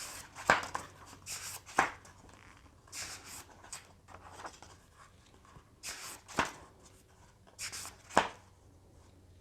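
Pages of a hardback book being turned and handled: a series of short papery swishes, a few of them ending in a sharp tap.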